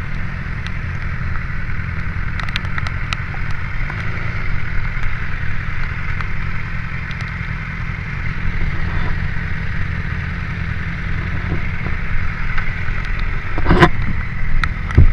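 BMW S1000 XR's inline-four engine idling steadily while the bike stands still, with a few light clicks early and a louder thump near the end.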